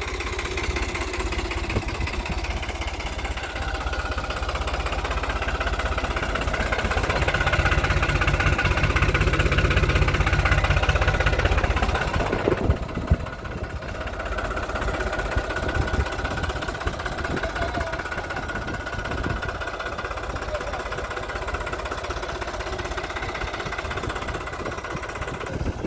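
New Holland 3600-2 tractor's diesel engine idling with a steady low throb, a little louder in the first half and dropping suddenly to a duller sound about halfway through.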